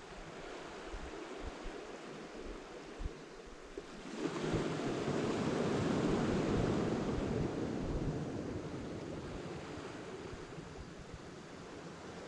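Small waves washing onto a pebble beach, a surge swelling up about four seconds in and slowly dying away, with light wind buffeting the microphone.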